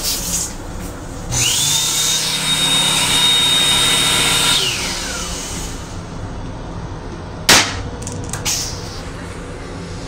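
Hand dryer in a train-restroom wash unit spinning up with a rising whine, running steadily for about three seconds, then winding down. About three seconds later comes a sharp knock, then a softer one a second after.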